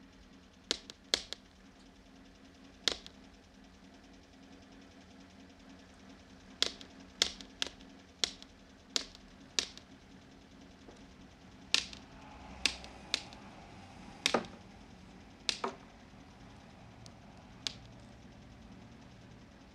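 Footsteps and white-cane taps on a hard pavement: sharp, irregular clicks, with a steady run of about two a second in the middle, over a faint steady hum.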